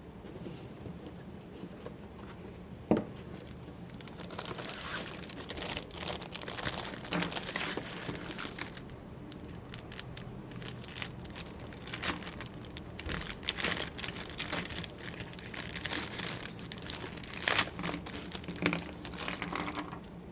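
Packaging of a plastic model kit being handled and opened: irregular crinkling and rustling of plastic bags and cardboard, with a sharp click about three seconds in.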